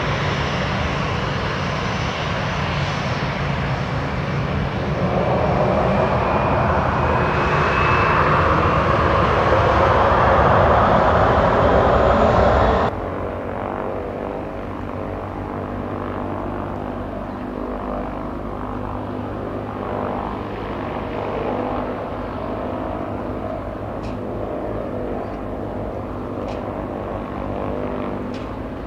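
Jet engines of an Airbus A320 airliner, loud and swelling, with a high whine that slowly falls in pitch. About 13 s in the sound cuts abruptly to the fainter, steady drone of another airliner's engines, an Airbus A321neo on its way in to land.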